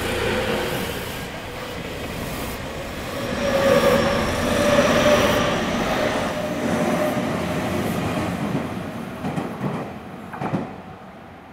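Tobu 30000 series electric train running past close by on ballasted track: wheel and bogie rumble with the whine of its IGBT-VVVF inverter and 190 kW induction traction motors as it accelerates. A few sharp clacks come near the end as the sound fades.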